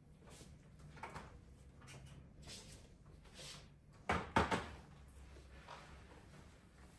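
Laptop being moved and set down on a desk, with two sharp knocks about four seconds in, among softer rustling and handling sounds.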